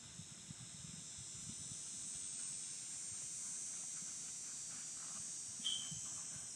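A steady, high-pitched insect chorus, with the faint, irregular thuds of a ridden horse's hooves cantering on grass in the distance. A brief high chirp comes near the end.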